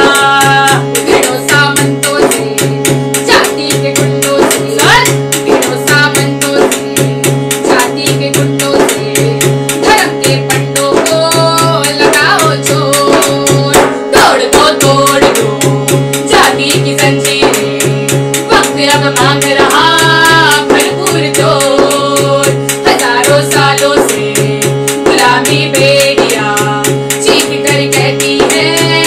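Two women singing a Hindi protest song in unison, accompanied by a hand-beaten drum keeping a steady beat and sustained keyboard chords.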